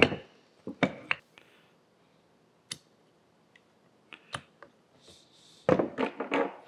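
Scattered small clicks and taps of a snap ring being worked onto the shaft of a hand winch with snap-ring pliers, with a denser run of handling clatter near the end.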